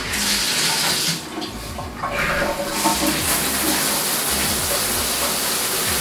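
Water spraying from a GURIN high-pressure rainfall shower head with its flow restrictor removed, running at higher pressure. The rush dips briefly, then builds and runs steadily from about three seconds in.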